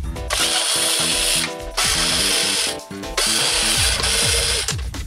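Ratcheting screwdriver clicking in three runs of about a second each as screws are turned out of a plastic monitor back. Quiet background music with a stepping melody plays underneath.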